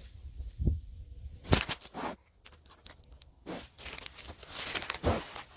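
Pot-bellied pig nosing around a phone lying in the grass: irregular knocks and bumps against the phone, with rustling and tearing of grass between them.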